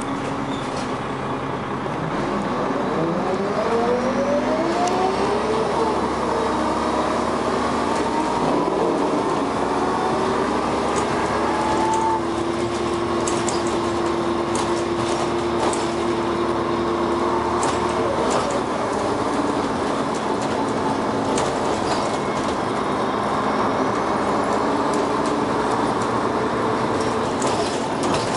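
Dennis Arrow bus under way, its engine and ZF automatic gearbox whining in pitch steps as it picks up speed and changes up, then holding a steady whine.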